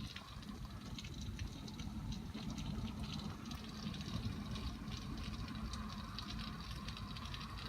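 Hail and heavy rain coming down steadily, with many small sharp ticks of hailstones striking over a constant wash of rain.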